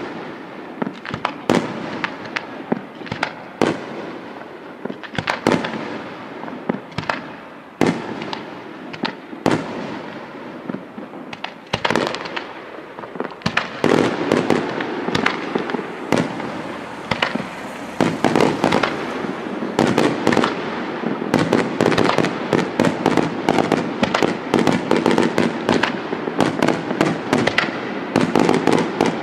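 Aerial fireworks going off in a string of sharp bangs. For roughly the first half the bangs are spaced about one or two a second. They grow denser about halfway through and turn into a rapid, almost unbroken volley of bangs in the last third.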